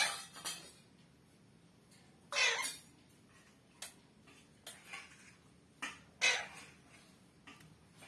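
Alexandrine parakeet giving a string of short squawks and chirps at its own reflection in a mirror. The loudest calls come about two and a half seconds in and again about six seconds in, with softer chirps and clicks between them.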